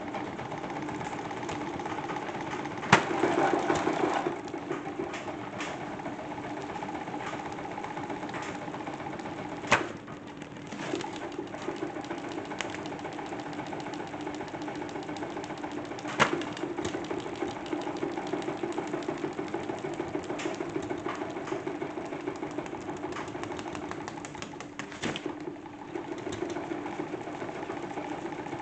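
A salad spinner rigged up as a toy washing machine, spinning its load with a steady hum and rattle. A few sharp knocks come through, about four times.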